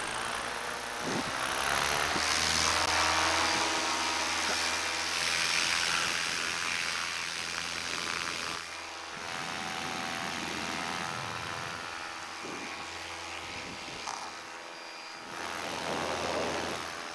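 Paramotor engine and propeller revving up to take-off power, the pitch rising about a second in, then running hard with wind noise over the microphone. The engine note drops back twice, about halfway through and near the end.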